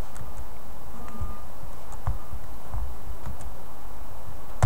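A few faint computer mouse clicks over a steady low hum of room and microphone noise, with one sharper click near the end.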